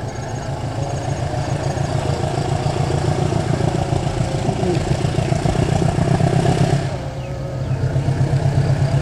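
Diesel-electric locomotive engine running hard as the locomotive approaches, growing louder, with a brief dip about seven seconds in and then a regular pulsing throb. It is working under heavy throttle and sending up a dark exhaust plume.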